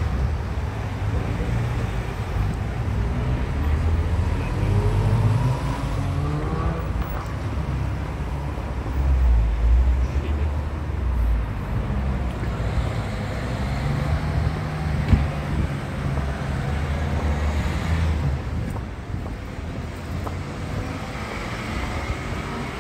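Street traffic of cars and vans driving by, with one engine rising in pitch as it speeds up a few seconds in.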